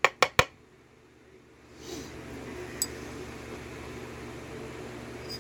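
Three quick sharp clicks as small metal lock pins and parts are handled and set down, then a steady low background hum with one faint tick about halfway through.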